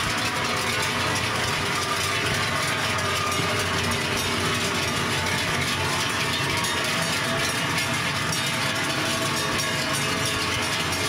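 Many large cowbells on a passing herd of cows, clanging together in a dense, steady, overlapping jangle of bell tones.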